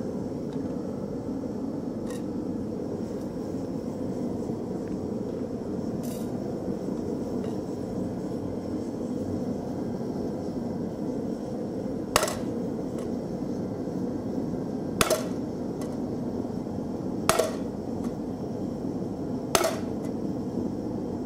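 Propane gas forge burner running with a steady rush. In the second half, four sharp hammer blows about two to three seconds apart strike a set hammer held on a hot carbon-steel disc, setting in the line that forms the skillet's bottom and raises its rim.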